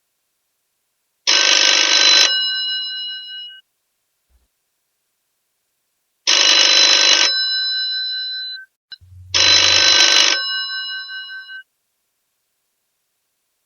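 Old telephone bell ringing: three separate rings of about a second each, with silent gaps between them. After each ring the bell tone lingers briefly as it dies away.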